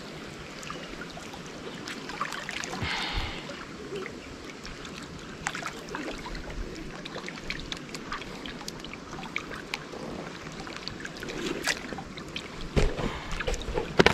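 Water lapping and trickling against the stone embankment of a dam, with scattered small clicks and taps from handling at the water's edge.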